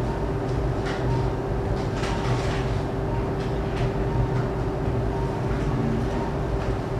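Steady mechanical hum of operating-room equipment running without change, with a few faint clicks on top.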